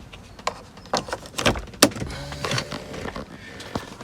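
A series of sharp plastic clicks and knocks from handling and fitting a BMW E93 electric window switch unit, the strongest about one and a half seconds in.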